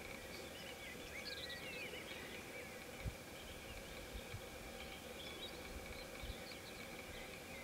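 Faint woodland ambience with small birds chirping in the distance, busiest about a second in and again in the second half, over a steady faint high drone. A few brief low thumps, the loudest about three seconds in.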